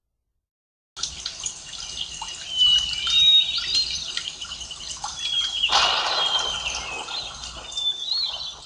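Birds chirping and singing in quick whistled notes, some gliding in pitch, starting after about a second of silence. A brief rushing burst of noise sounds a little past the middle.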